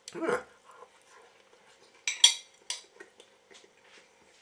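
A metal fork clinking against a dish: one sharp, loud clink about two seconds in and a lighter one just after, then a few faint small clicks.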